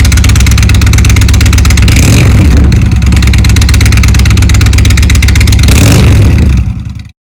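2019 Indian Chieftain Limited's V-twin engine running loud through newly fitted Rinehart slip-on mufflers, revved up twice, about two seconds in and again near six seconds. The sound dies away and cuts off just before the end.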